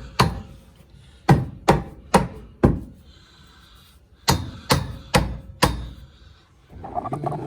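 Rubber mallet striking a steel bolt-in frame connector to drive it into the car's frame rail: a run of five sharp blows, a pause of about a second and a half, then four more blows about half a second apart.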